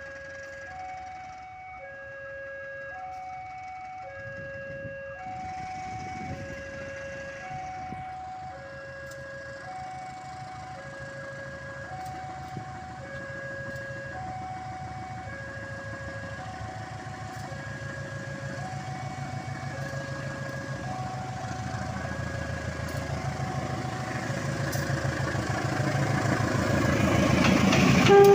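Railway level-crossing alarm repeating an electronic two-tone chime, the pitches alternating about once a second. Under it, the rumble of an approaching diesel locomotive grows steadily louder and is loudest near the end.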